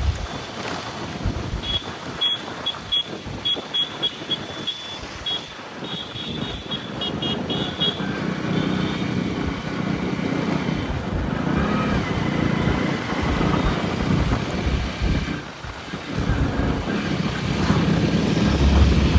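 Motorcycle riding along a road: engine running under the rush of wind and tyre noise. Between about 2 and 8 seconds in there is a quick series of short, high-pitched beeps.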